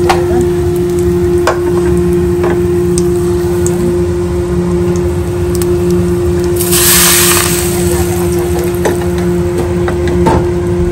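Food sizzling in hot oil with a steady hiss, a few knocks, and a louder burst of sizzling about seven seconds in.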